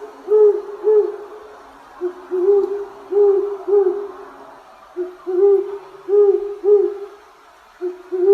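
An owl hooting in repeated phrases of low hoots, each a short note followed by three longer hoots. A new phrase starts about every three seconds.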